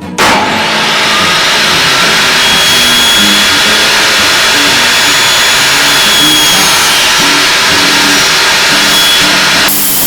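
A woodworking power tool running loud and steady. It starts abruptly just after the opening and its sound shifts near the end. Acoustic guitar music plays quietly underneath.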